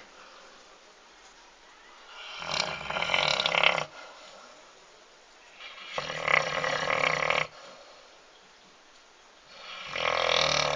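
Large dog snoring in its sleep: three long, loud snores a few seconds apart, with quiet breathing between them.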